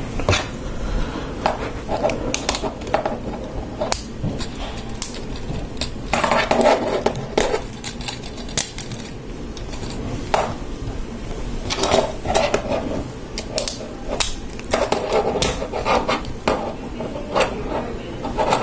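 Small plastic Lego Technic pieces clicking and rattling as they are handled and rummaged through during a build, with denser bursts of clatter a few times.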